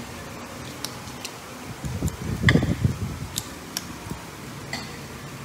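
Metal fork and spoon clicking and scraping against a plate, a sharp tap every second or so. About two seconds in there is a louder, muffled low sound lasting about a second.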